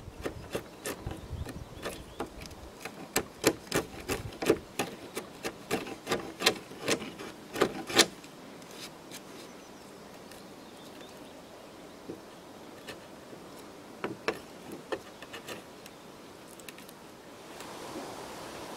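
Claw hammer striking a wood chisel, chopping out a notch in a peeled log post: a run of sharp knocks, about two a second, that stops about eight seconds in, with a few more taps later. A steady hiss takes over near the end.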